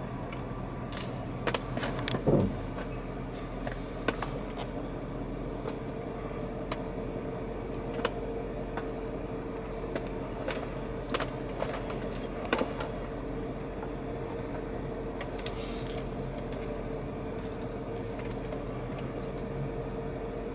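Jeep Cherokee idling steadily after pulling up to a curb, with a few scattered light clicks and knocks.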